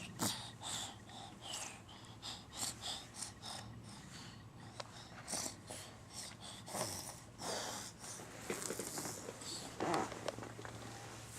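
A string of short, irregular breathy snorts and puffs over a steady low hum.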